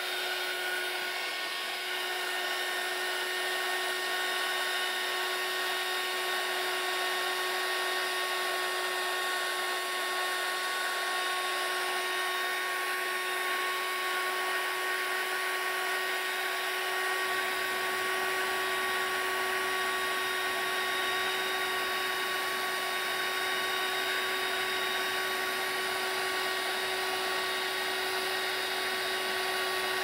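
Electric heat gun running steadily, its fan blowing with a steady whine over a rushing hiss, with a deeper rumble joining about halfway through. It is heating a smartphone's glued-on display to soften the adhesive so the screen can be pried off.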